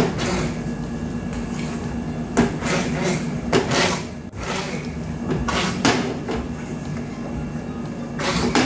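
Hand-held immersion blender running in chunky tomato sauce in a stainless steel skillet. Its motor hums steadily, with several louder surges of churning and splashing as tomato chunks are puréed to thicken the sauce.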